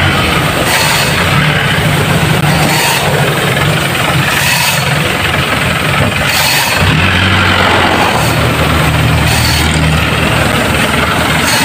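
Isuzu Fuego pickup's engine idling steadily, its note shifting slightly lower about seven seconds in.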